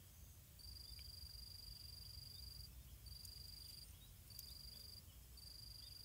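An insect's high-pitched pulsing trill, cricket-like, repeating in bouts of one to two seconds with short breaks, over a faint low rumble.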